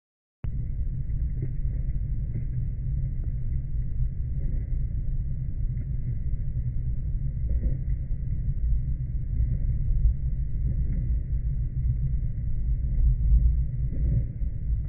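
Steady low rumble of a motorcycle on the move, cutting in abruptly just under half a second in after a moment of silence.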